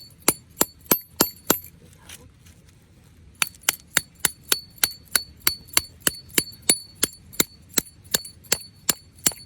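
Hammer driving a metal tent stake, steady strikes about three a second with a bright metallic ring on each blow. A short run of blows is followed by a pause of about two seconds, then a long, even run.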